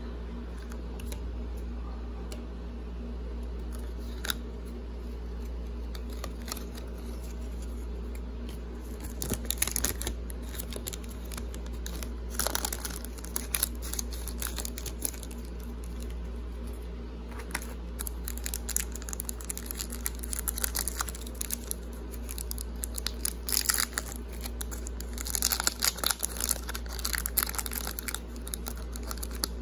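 Foil trading-card pack wrapper being torn open and crinkled by hand, in irregular bursts of crackling that start about a third of the way in. A steady low hum runs underneath.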